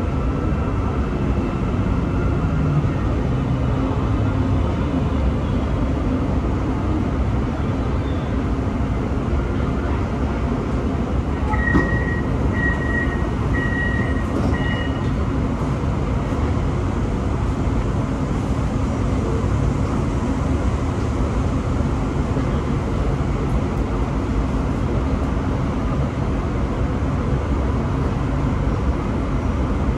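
Inside a Putrajaya Line MRT train: the train slows into a station, its motor whine falling in pitch over the first few seconds, then a steady cabin hum while it stands. A string of four short electronic beeps sounds about twelve seconds in.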